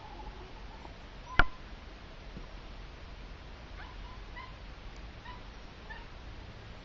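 A cairn terrier gives one short, sharp yip about a second and a half in. Faint short chirps follow later.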